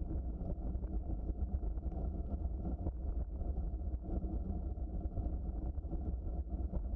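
Bicycle rolling along a trail: a steady low rumble of tyres and frame, with faint scattered clicks.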